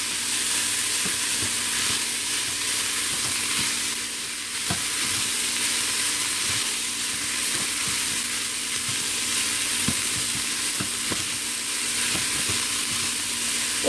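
Chopped cabbage and bell pepper sizzling in oil in a stainless steel Instant Pot inner pot, stirred with a silicone spatula that knocks and scrapes against the pot now and then.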